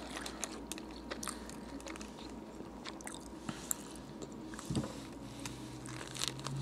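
Close-up chewing and biting of a soft, untoasted Subway roast beef sub, with small wet mouth clicks throughout. A duller thump comes about five seconds in, followed by a low, steady closed-mouth hum near the end.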